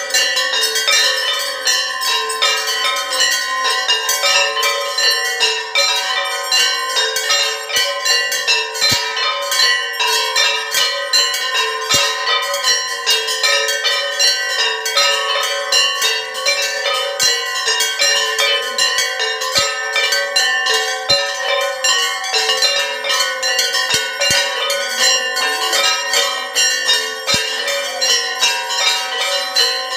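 Several large brass hand-held temple bells, swung overhead and clanging rapidly and without pause, as they are rung for an aarti.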